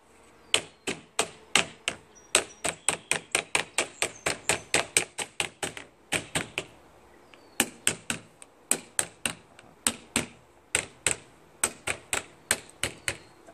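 Claw hammer tapping lightly on a plastic pet-door frame, driving it into a screen door's mesh: a quick run of sharp taps, about three a second, with a short pause near the middle.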